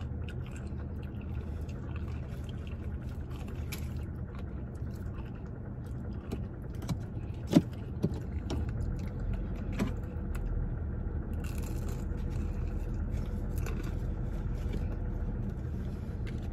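Chewing and biting a crispy fried chicken strip: scattered crunches, clicks and wet mouth sounds, the sharpest about seven and a half seconds in, over a steady low rumble.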